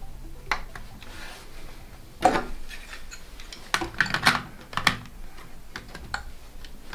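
Plastic LEGO bricks clicking and clattering as parts of the LEGO 10302 Optimus Prime model are moved and pressed into place by hand: scattered sharp clicks, loudest about two seconds in and in a quick cluster around four seconds in.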